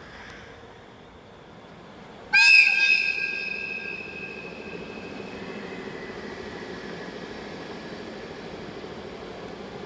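A train's air whistle sounding once, a loud high-pitched blast that starts suddenly about two seconds in and fades away over the next couple of seconds.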